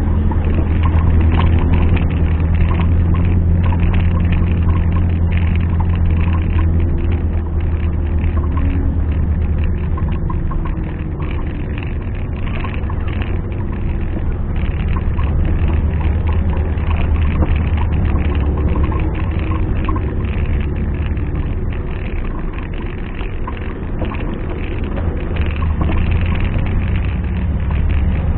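An off-road 4x4's engine running at low revs, a steady low drone whose pitch rises and falls a little as it works. It is loudest at the start and again near the end, a little weaker in the middle.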